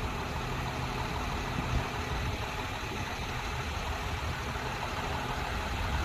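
A steady low mechanical rumble, like an engine idling.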